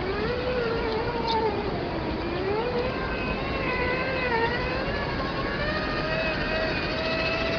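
Electric motor and gearbox of a Traxxas TRX-4 RC crawler whining continuously, the pitch rising and falling slowly as the throttle is worked, over a steady bed of noise.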